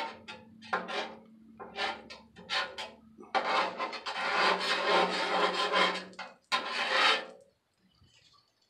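Metal spatulas scraping across a flat-top griddle: about six short scrapes, then one long scrape of about three seconds, and one more short one.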